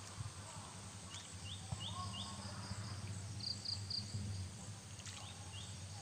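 Pondside ambience with small birds calling: short high chirps in quick runs of three, and four quick rising notes about a second in, over a steady low hum.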